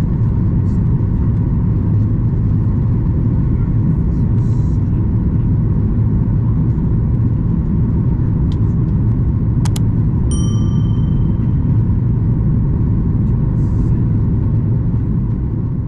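Steady low rumble of a Boeing 737 MAX 8 cabin in flight, engine and airflow noise heard from an economy seat. A single cabin chime rings out about ten seconds in.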